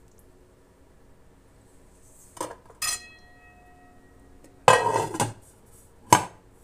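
Aluminium pot lid being set onto a large aluminium cooking pot: two light clinks, one ringing briefly, then a louder clatter and a final clank as the lid settles.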